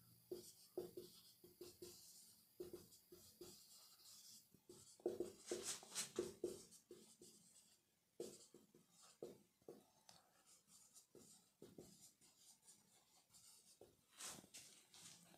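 Dry-erase marker squeaking and scratching on a whiteboard in many short, faint strokes as words are written, with brief pauses between clusters.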